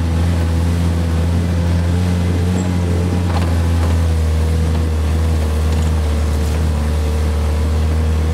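Vehicle engine running steadily as it drives along a dirt trail: a low, even drone that holds nearly the same pitch throughout.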